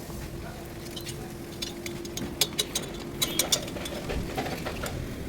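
A quick run of light, sharp metallic clicks and taps from hand tools and parts being handled, over a steady hum.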